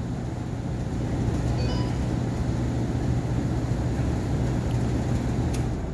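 Old gas furnace's fan motor running with a steady hum while the burners fail to light, starting to wind down near the end as it is shut off.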